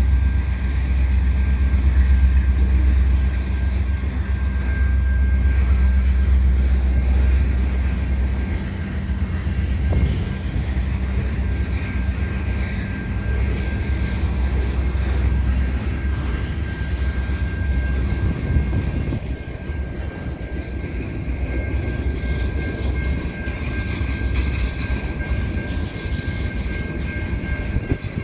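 Canadian National freight train passing at speed: the deep diesel rumble of the lead ES44AC and SD70M-2 locomotives for the first eight seconds or so, then the rattling, rolling noise of the tank car, flatcars and boxcars going by.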